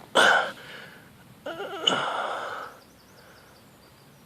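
A man's heavy breaths out close to the microphone: a sharp exhale just after the start, then a longer sigh with some voice in it about a second and a half in.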